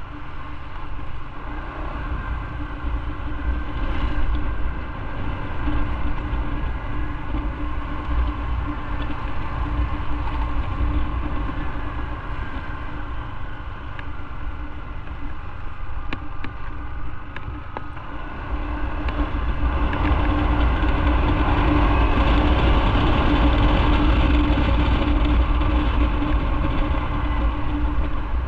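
Motorcycle engine running steadily while riding on city streets, over a heavy low rumble. It gets louder about two-thirds of the way through, then eases off near the end.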